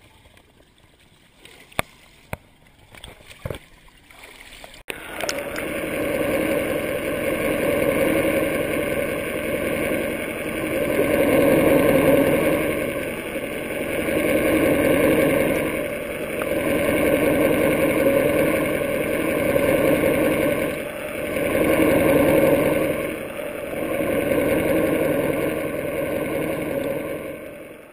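Muffled underwater rushing of water around a submerged camera, starting abruptly about five seconds in after a few faint clicks, then swelling and fading about every two seconds.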